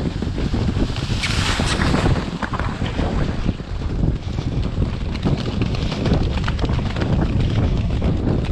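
Wind buffeting the microphone of a jockey's helmet camera on a galloping racehorse, with the quick beat of hooves on turf underneath and a brief louder rushing hiss about a second in.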